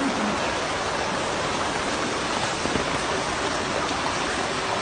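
Floodwater rushing through a street in heavy rain: a steady, even noise of running water and falling rain.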